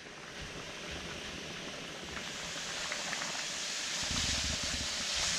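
Beef, mushrooms and carrots sizzling as they are stir-fried, a steady hiss that slowly builds, with a few low knocks of stirring from about four seconds in.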